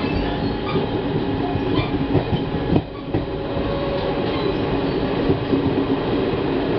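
Running noise of an Indian Railways passenger train heard from on board: a steady rumble of wheels on the rails with occasional clacks, and a sharp knock nearly three seconds in.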